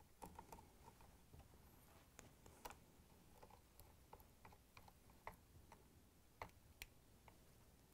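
Faint, scattered clicks and ticks of a hand Phillips screwdriver working screws into the gear housing of a KitchenAid stand mixer, otherwise near silence.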